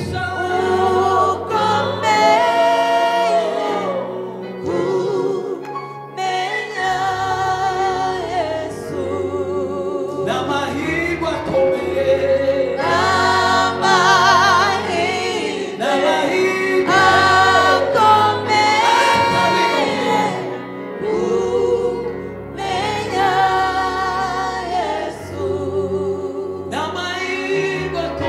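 Gospel choir singing a worship song, with a bass line stepping beneath the voices.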